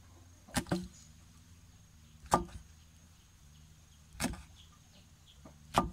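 Meat cleaver chopping through eel on a thick wooden log chopping block: four sharp chops, roughly two seconds apart.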